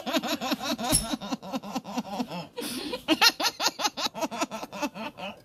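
A woman laughing in rapid, repeated bursts, in two long runs with a short break between them, and a single sharp knock about a second in.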